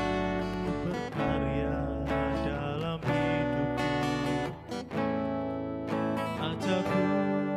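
Music of a slow worship song, carried by a strummed acoustic guitar.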